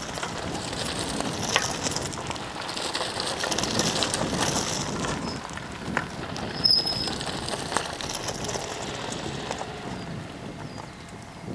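Mountain bikes riding past on an asphalt road, a steady rushing tyre noise with a few sharp clicks, dying down near the end.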